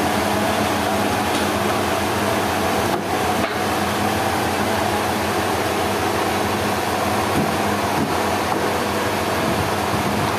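Sawmill machinery running steadily: a constant mechanical drone with a steady hum.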